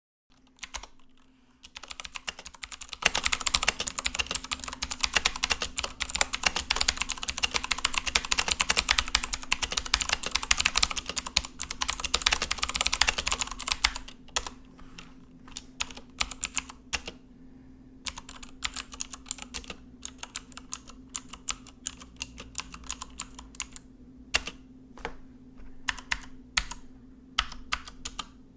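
Cooler Master mechanical keyboard with clicky blue switches being typed on: fast, continuous typing from about three seconds in, easing after about fourteen seconds into slower, scattered keystrokes. A faint steady hum lies underneath.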